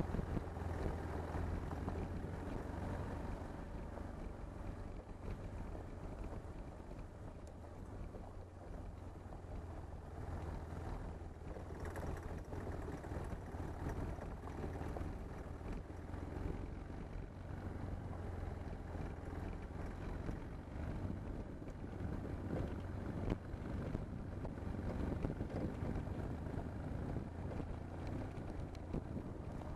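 BMW R1150GS sidecar rig's boxer-twin engine running steadily while riding on a gravel road, with wind noise on the microphone and tyre noise from the gravel.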